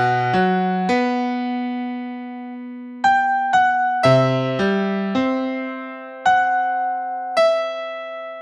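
Slow solo piano music: notes and chords struck and left to ring. A chord is held for about two seconds near the start, then a slow line of single notes follows, a little over one every half second.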